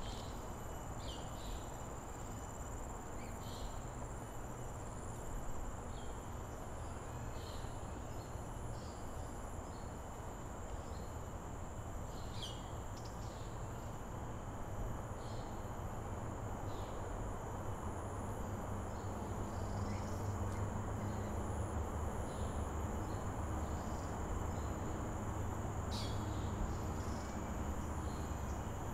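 Steady outdoor insect chorus, a continuous high-pitched drone with short chirps every second or two, over a low rumble that grows louder in the second half.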